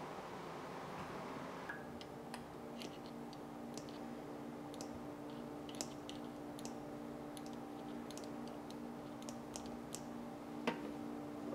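Light, irregular metal-on-metal clicks and ticks as the tip of a small steel tool works around inside an oily bearing sleeve, with one sharper click near the end. A steady low hum from the shop dehumidifier runs underneath.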